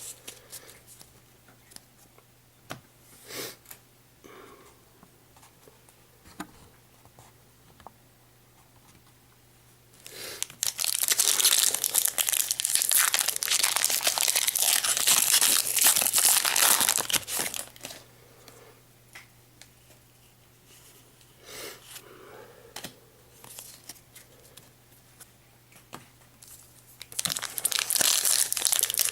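Foil wrapper of a Pokémon trading-card booster pack being torn open and crinkled, in a loud stretch of about seven seconds near the middle and again near the end. Between them, soft clicks and shuffles of cards being handled.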